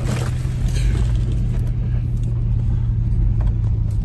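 Van engine running steadily under load with a low, even hum and rumble, heard from inside the cab while the van is towed out of deep snow.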